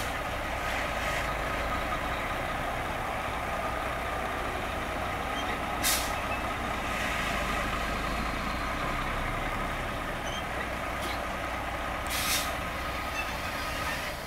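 Diesel engine of a 1995 Volvo ACL64B tri-axle dump truck running at a steady idle. Three short air hisses from the truck's air system come about six seconds apart.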